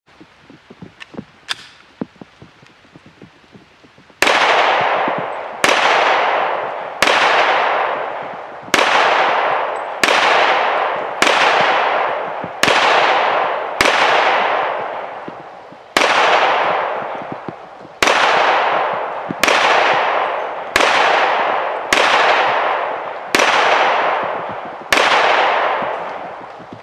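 Handgun fired slow and deliberate, about fifteen single shots spaced one to two seconds apart, each followed by a long echo fading away. A few light clicks come in the first few seconds, before the shooting starts.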